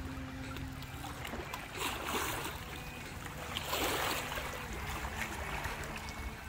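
Small waves lapping and splashing against shoreline rocks over a steady low wind rumble on the microphone, with two louder splashes about two and four seconds in.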